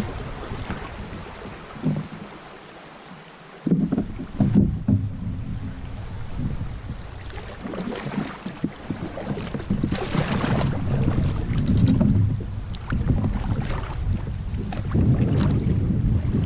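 Wind buffeting the microphone over river water, with a couple of sharp knocks around four seconds in.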